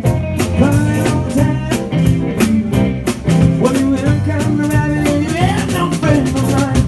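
Live rock and roll band playing: a male lead vocal over electric guitars, electric bass and drums with a steady beat.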